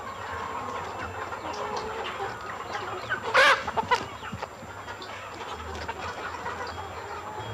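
A crowd of caged laying hens clucking and cackling together, with one loud squawk about three and a half seconds in.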